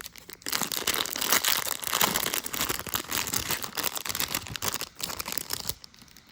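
Plastic toy packaging crinkling and tearing as it is opened by hand, a dense run of crackles that dies away near the end.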